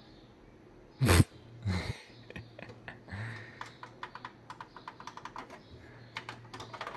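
Front-panel buttons of a Philips FX30 mini hi-fi system clicking as they are pressed over and over, with a loud thump about a second in. The unit gives no response: it does not switch on.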